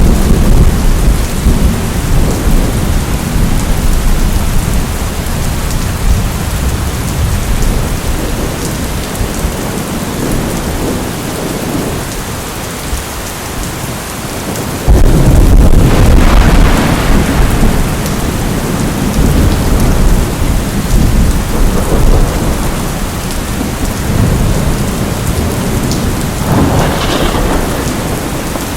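Steady heavy rain with thunder. A rumble fades over the first few seconds. About halfway through, a sudden loud thunderclap breaks out and rumbles on for several seconds.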